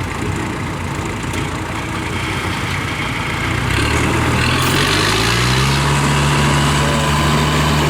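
Farm machine engine revving up about three and a half seconds in and holding at high revs under load, straining to drag a grain-laden rice-hauling tractor out of deep mud.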